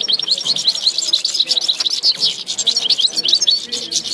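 Caged eastern Algerian goldfinch singing: a fast, continuous run of high twittering chirps and trills.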